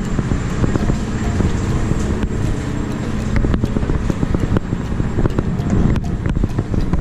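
Steady low engine rumble aboard a car ferry, with footsteps clicking on metal stairs near the end.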